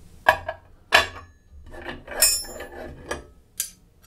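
Steel open-end spanners and a metal vernier caliper being handled on a wooden table: a string of sharp metallic clinks and knocks with a little scraping, one cluster about two seconds in ringing briefly.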